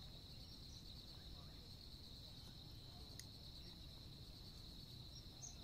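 Faint, steady, high-pitched insect chorus droning without a break over a low rumble of background noise, with one small click about three seconds in.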